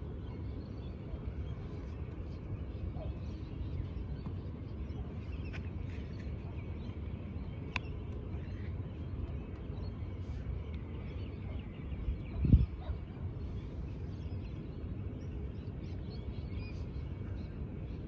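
Outdoor park ambience: a steady low rumble with faint, scattered bird calls over it, and one short low thump about twelve seconds in.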